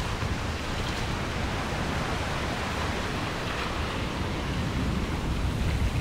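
Rain in a steady, even hiss, from a storm-and-rain ambience track.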